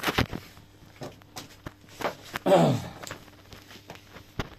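Scattered light clicks and knocks of handling around the motorcycle, with one short voice-like sound falling steeply in pitch about two and a half seconds in, over a faint steady hum.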